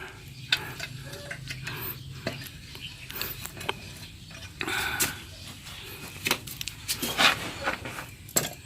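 Metal clanks and knocks at uneven intervals from a hand-operated water pump (poso) being worked. The pump's plunger seal has been replaced with rubber cut from a slipper, and it now pumps strongly again.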